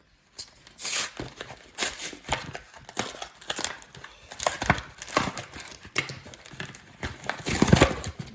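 Packaging of a Pokémon trading-card three-pack being torn open by hand: irregular crinkling and tearing, with the longest, loudest tear near the end.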